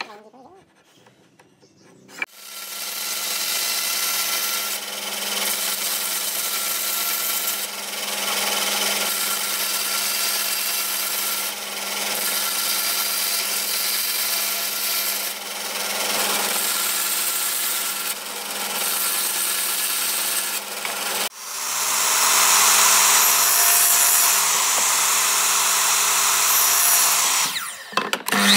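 A couple of seconds of faint handling clicks, then a bandsaw starts and runs with a steady hum, swelling and easing every few seconds as the blade cuts a row of kerfs into a pine board. About three-quarters of the way through it gives way abruptly to a louder, hissier saw run, a miter saw, which stops shortly before the end.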